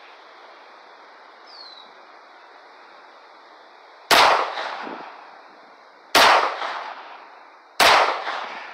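Three shots from a Taurus PT1911 .45 pistol, the first two about two seconds apart and the third a second and a half later. Each is a sharp crack with a short echo dying away.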